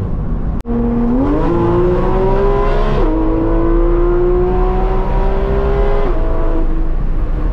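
Porsche 991 GT3 RS flat-six engine and exhaust under acceleration: the engine note rises, climbs steadily through a gear, drops sharply at a quick upshift about three seconds in, then climbs again and drops once more near six seconds. A very brief break in the sound comes just under a second in.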